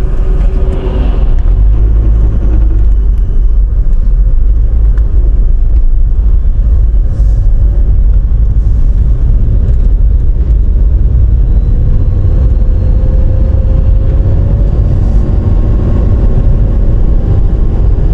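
A car driving on the highway: a steady, loud low rumble of road and tyre noise.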